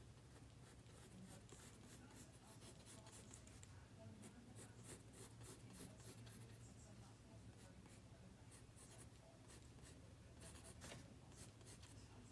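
Faint scratching of a mechanical pencil sketching on drawing paper: many short strokes in quick, irregular succession, over a faint steady low hum.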